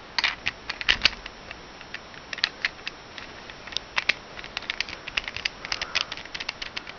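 Plastic Rubik's cube pieces clicking and clacking as corner pieces are slid into place and the layers are turned by hand: irregular sharp clicks, some in quick clusters.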